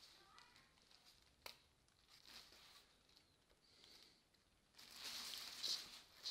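Near silence: room tone with faint rustling and one short click about a second and a half in.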